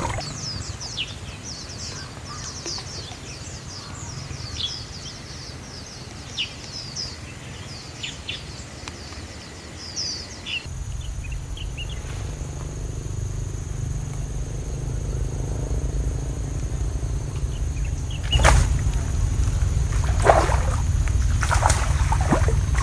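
Small birds chirping rapidly in high, short calls, then a steady low rumble. In the last few seconds a hooked fish thrashes at the water's surface, making several loud splashes.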